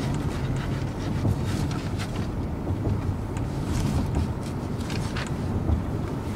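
Road and engine noise inside a moving car's cabin: a steady low rumble with a few faint ticks.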